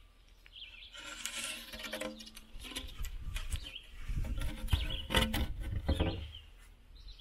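Irregular knocks and scraping as the wooden door is fitted into the mouth of a clay cob oven, with rumbling handling noise; most of it falls from about a second in until shortly before the end. Birds chirp faintly in the background.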